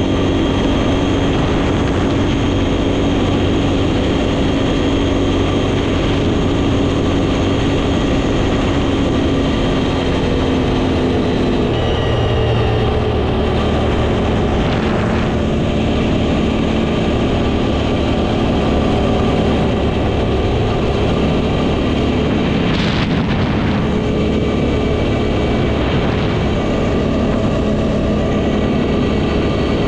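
CFMOTO X8 ATV's V-twin engine running steadily, its note changing about twelve seconds in.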